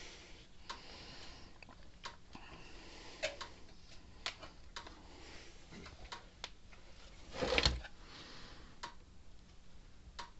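Electric fence energizer pulsing, a sharp tick roughly every 1.3 seconds. A louder snap comes about three-quarters of the way through.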